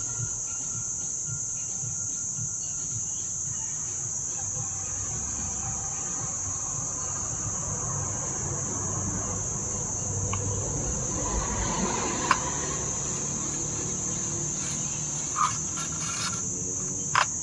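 Steady high-pitched trill of crickets, with a few short clicks and knocks in the second half.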